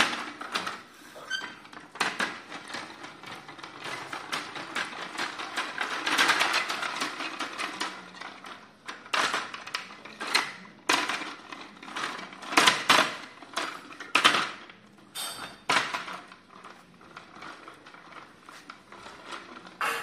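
Hard plastic pull-along toy dog clattering and knocking on a stone floor as it is pulled by its cord: a run of irregular clicks and knocks, thickest about six seconds in, with louder single knocks in the second half.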